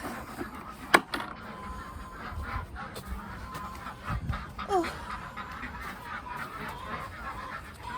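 Domestic geese and ducks honking and calling, with a single sharp click or knock about a second in.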